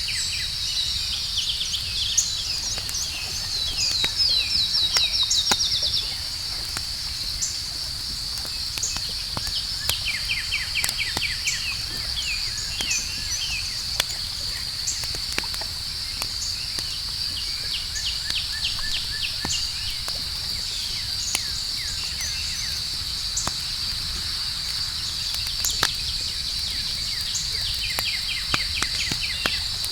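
Campfire crackling with scattered sharp pops and a low rumble, over a steady high drone of night insects such as crickets and repeated chirping trills.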